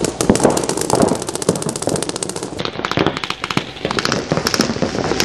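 Several paintball markers firing rapidly at once, a dense crackle of shots that thins out into more scattered strings about two and a half seconds in.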